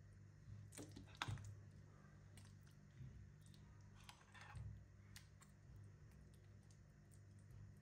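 Faint clinks and scrapes of a metal spoon and fork against a ceramic serving plate and a glass baking dish while spooning out a chunky eggplant salad; the loudest clink comes about a second in. A low steady hum runs underneath.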